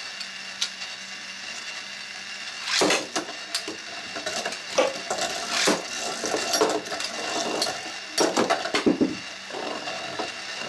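Two Metal Fight Beyblade spinning tops launched into a plastic stadium, whirring and clashing with sharp clicks and clatters. The loudest bursts come about three seconds in and again around eight to nine seconds.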